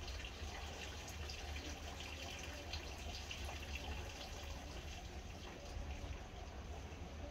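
Faint steady rushing noise over a low rumble, with light scattered rustles and ticks from newborn piglets shuffling over wood-shaving bedding.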